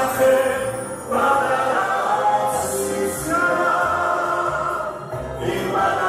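A woman and a man singing a duet into handheld microphones over musical accompaniment, with some long held notes.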